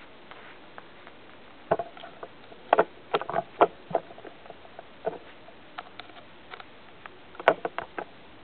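Plastic Lego bricks clicking and clattering as they are handled and pressed together, irregular sharp clicks coming in quick clusters.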